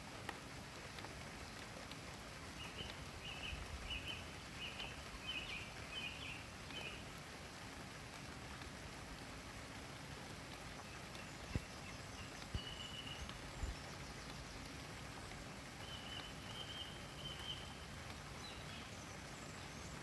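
Common nightingale singing faintly: a quick run of short repeated notes a few seconds in, then longer held whistled notes around the middle and again later, over a steady background hiss.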